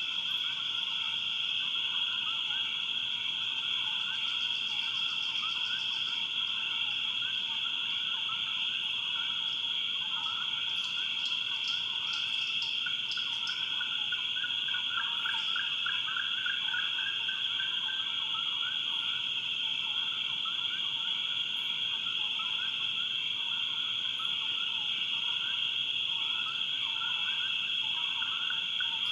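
Swamp night chorus: a steady high-pitched insect drone with many frogs calling in dense overlapping chirps beneath it, and a few brief rapid trills from other insects.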